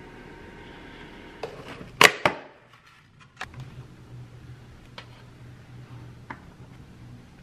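A ceramic bowl set down on a table with a few sharp clacks, the loudest two about two seconds in. After that, a low steady hum with a few faint clicks.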